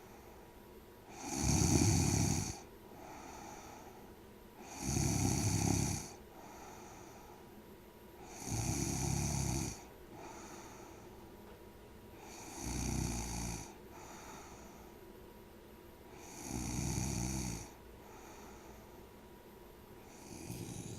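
Snoring in a slow, regular rhythm: five loud snores, each about a second long and about four seconds apart, with a softer breath between each pair. A sixth snore begins right at the end.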